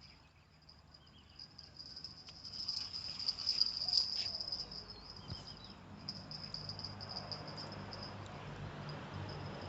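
High, steady chirring of insects, cricket-like, swelling louder a few seconds in. A faint low hum joins in the latter half.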